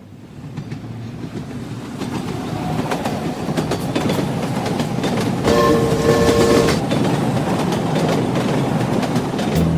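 Train running on rails, its wheels clattering over the rail joints, growing louder over the first few seconds. About halfway through, a train horn sounds once for just over a second.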